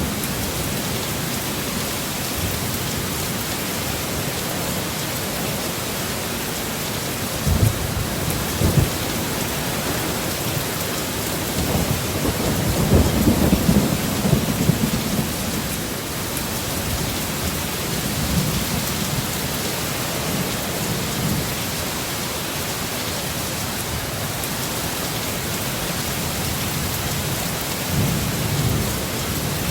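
Heavy rain falling steadily, with low rumbles of thunder: two short ones about a quarter of the way in, a longer, louder rumble that builds and fades around the middle, and a brief one near the end.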